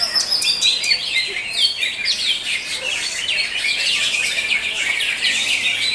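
Caged cucak hijau (green leafbirds) singing a dense, unbroken stream of fast chirps and trills, with several birds going at once.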